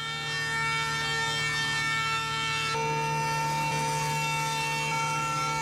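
Background music of sustained chords, the held notes shifting to a new chord about three seconds in and again near the end.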